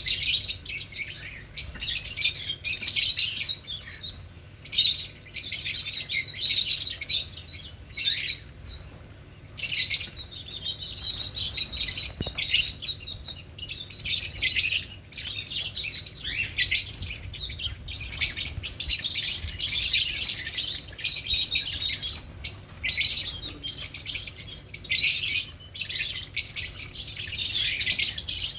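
Lovebirds chattering: a dense run of high chirps in bursts, broken by short pauses.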